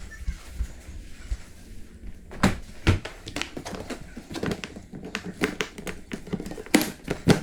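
Irregular clicks and knocks of hand work on a leaking water pipe during the repair, with sharper knocks about two and a half and three seconds in and twice near the end.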